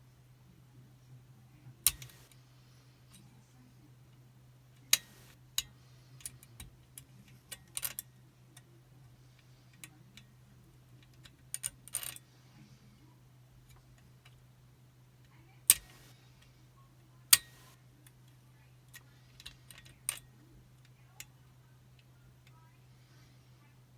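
Scattered sharp metallic clicks and ticks from a picking wire and tension tool working the levers inside a Chubb Detector five-lever lock, irregular with long gaps. A steady low hum runs underneath.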